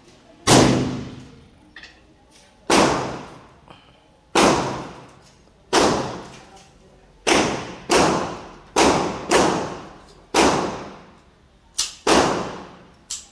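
About a dozen single rifle shots from a suppressed M16, fired at irregular spacing of roughly half a second to two seconds. Each is a sharp report with a tail that fades over about a second.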